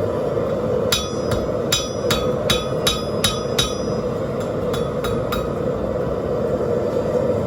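Hand hammer striking rebar on a 175 lb Trenton anvil: a run of about eight ringing blows at a steady pace of roughly three a second, then a short pause and three lighter blows. Under the blows runs a steady rushing noise, the gas forge's burner.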